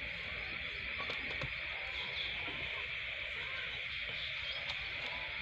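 Rural outdoor ambience: a steady high drone of insects over a low rumble, with a few faint bird chirps.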